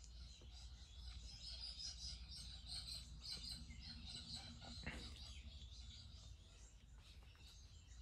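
Mistral MCFLA 48 Style 1 ceiling fan running with a faint, steady low hum, while birds chirp outside.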